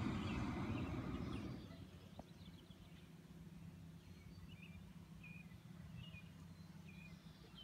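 Hot air balloon's propane burner firing in a loud roaring blast that cuts off about a second and a half in, followed by small birds chirping in short calls.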